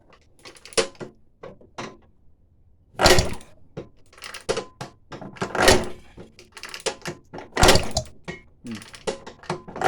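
Irregular knocks and clunks from hands-on work on a 1946 Atco cylinder mower, with four loud ones about three, six and eight seconds in and at the very end.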